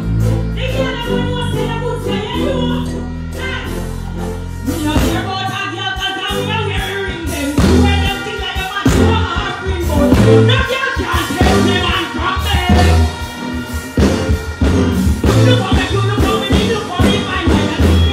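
Live music through a PA system: a female singer on the microphone over a band, with a held bass note for the first five seconds or so, then a steady beat kicking in.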